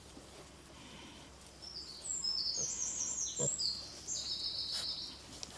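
A songbird singing a quick run of high, clear notes that step up and down in pitch. It starts about two seconds in and lasts about three seconds.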